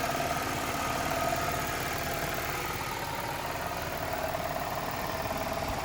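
1997 Pontiac Grand Prix engine idling steadily, with the cooling system freshly refilled and bled of air after a heater hose replacement.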